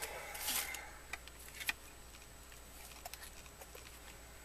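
Small handling noises: a brief rustle about half a second in, then a few scattered light clicks as the pieces of a broken display case and stand are handled.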